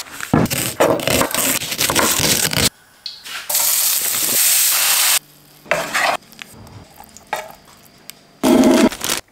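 Cooking sounds from a run of short shots: pastry on baking paper rustling and crinkling as it is unrolled, then sliced leeks and lardons sizzling in a frying pan for about two seconds, then a few light clicks and a short loud rustle near the end.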